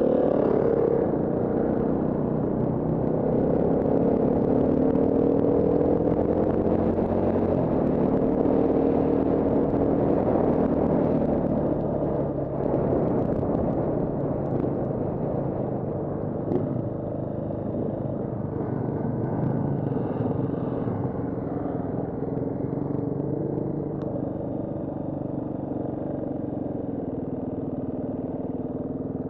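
KTM 350 EXC-F Six Days four-stroke single-cylinder dirt bike engine running on the move. Its pitch rises and falls with throttle and gear changes during the first dozen seconds, then it runs lower and steadier.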